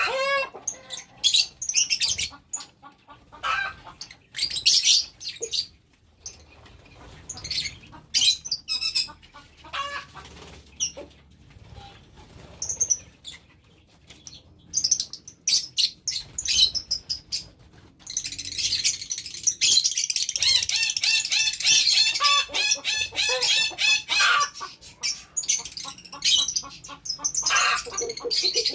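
Lovebirds in an aviary giving shrill, high-pitched chirps and squawks in short scattered bursts; about two-thirds of the way in they break into several seconds of dense, rapid chattering.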